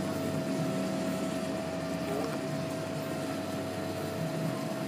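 Steady mechanical hum of room background noise, with one constant tone held throughout.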